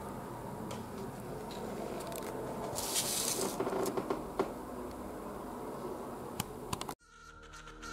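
Sheets of paper with drawings being handled: a soft paper rustle about three seconds in, with a few light clicks over a steady background hiss. Near the end the sound cuts off suddenly and quiet music fades in.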